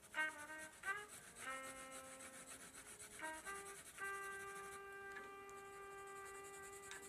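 A Prismacolor colored pencil scratching and rubbing on drawing paper, with a short run of steady pitched notes over it. The notes are brief at first, then one note is held for about three seconds near the end.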